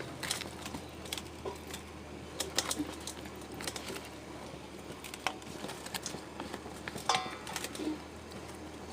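Scattered light clicks and knocks of a bowl and kitchen utensils being handled as meat is moved into the bowl, with one sharper clink that rings briefly about seven seconds in.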